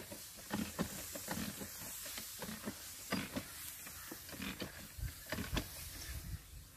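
Manual knapsack sprayer in use: irregular knocks and creaks, roughly one to two a second, from the hand-pumped sprayer over a steady hiss of spray from the nozzle.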